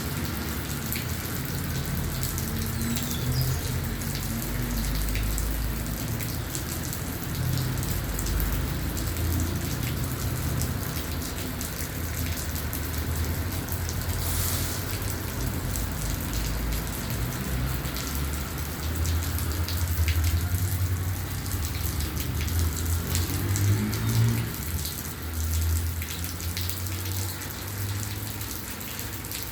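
Steady rain with many individual drops striking a surface, over a low rumble that swells about twenty seconds in.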